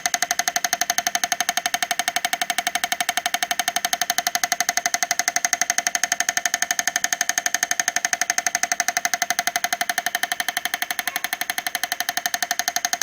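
Homemade plywood miniature diesel engine model running, giving a rapid, even knocking that imitates a diesel engine's beat.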